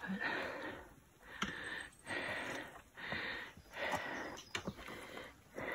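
Heavy, panting breaths of a hiker out of breath on a steep rocky climb, about one breath a second, with a few light clicks.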